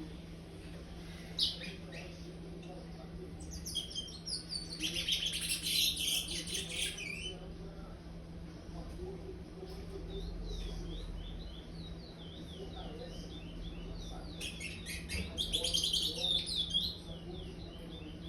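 A young chestnut-bellied seed finch (curió), still in brown juvenile plumage, singing: two bursts of rapid, high twittering song, with a run of short repeated chirps between and after them. This is the curió's "praia" song type.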